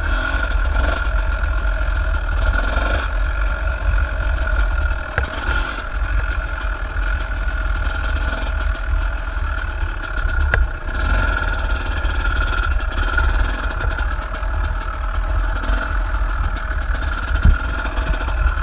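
Dirt bike engine running steadily at low speed on the move, with heavy wind rumble on the microphone. A single thump near the end.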